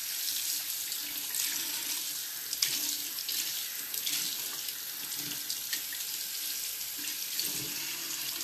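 Water running from a tap into a sink and over a hand being rinsed: a steady rush of water with small splashes.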